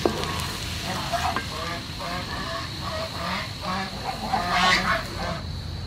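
Chopped garlic sizzling in hot oil in a steel wok, stirred with a wooden spatula, with a sharp tap of the spatula on the metal at the start. Repeated duck-like honking calls sound over the frying, loudest about four and a half seconds in.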